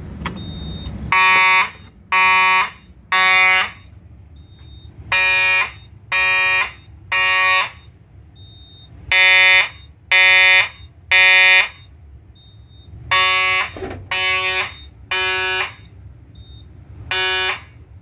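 Fire alarm horn strobe sounding the temporal code-3 evacuation pattern: rounds of three short, buzzy horn blasts with a pause after each round. Four full rounds sound, with the next one starting near the end, after a key activation of the pull station.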